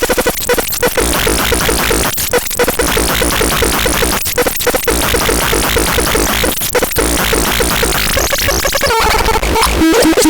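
Synthesizer playing a harsh, noisy electronic drone with a rapid pulsing tone; about nine seconds in the tone starts to wobble and shift in pitch.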